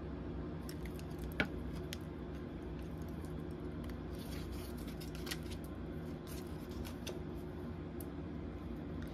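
Tarot cards being handled and laid down: scattered soft taps and slides of card stock, with one sharper tap about a second and a half in, over a steady low room hum.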